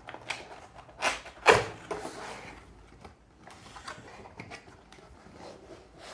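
Cardboard box being opened and its contents handled: two sharp knocks about a second in, then a brief sliding rustle of cardboard, followed by faint scattered handling clicks.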